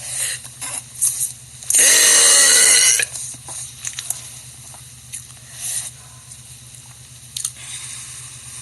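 A young woman's loud burp about two seconds in, lasting just over a second, its pitch wavering.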